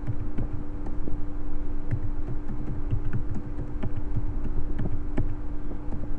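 Typing on a computer keyboard: irregular key clicks and thumps, several a second, over a steady electrical hum.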